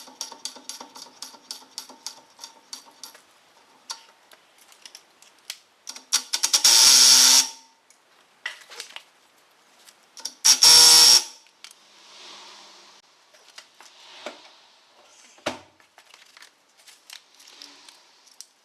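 Socket wrench ratcheting quickly as the nut on the new rear wheel bearing hub is run down, then two loud, harsh bursts about a second long each, a few seconds apart, and scattered light clicks.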